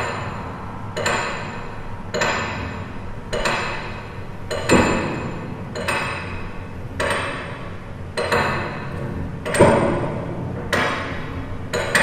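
Music of repeated struck, ringing percussive hits, evenly spaced a little slower than once a second, each hit ringing on and dying away before the next, over a steady low hum.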